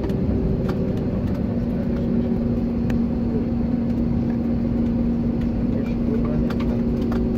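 Steady cabin noise of an Airbus A321neo rolling along the runway after landing: an even engine and rolling rumble, with a steady low drone coming in about a second and a half in.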